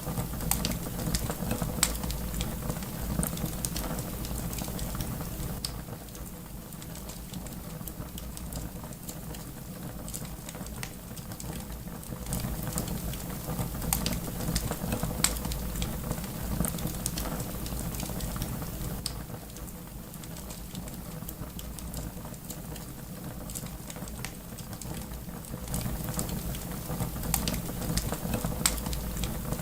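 Wood fire crackling, with scattered sharp pops and snaps over a low steady rumble.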